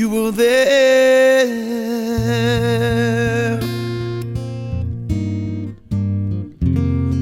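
Acoustic guitar playing the song's closing bars, with a wavering held sung note over it for the first few seconds. After that come single plucked notes over a low bass line.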